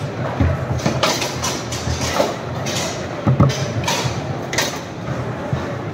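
Foosball in play: the ball struck by the plastic figures and the rods knocking against the table, a series of sharp, irregular knocks over a steady hall murmur.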